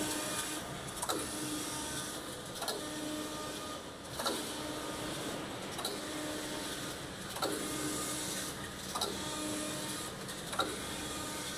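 Collar knitting machine running, with a sharp click and a motor tone that drops in pitch and then holds steady, repeating about every second and a half as the knitting carriage reverses across the needle bed.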